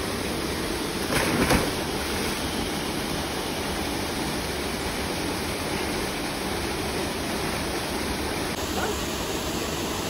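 Steady rush of flowing water from the falls and stream, with a brief splash about a second in as a person plunges into the pool.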